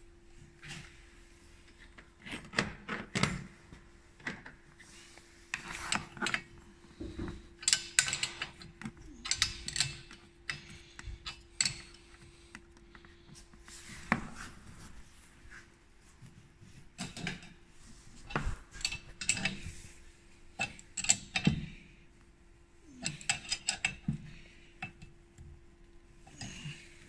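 Plastic windscreen cowl (scuttle) panel of a Renault Mégane II being pressed and fitted back into place by hand: irregular bursts of plastic rubbing, scraping and clicking, with a faint steady hum underneath.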